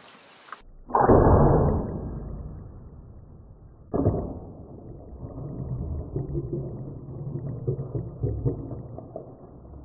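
Slowed-down sound of a bow shot striking a warthog, deep and muffled. A sudden loud hit about a second in fades over about two seconds, and a second, weaker hit comes near four seconds. Uneven low sounds follow as the hog splashes away from the water trough.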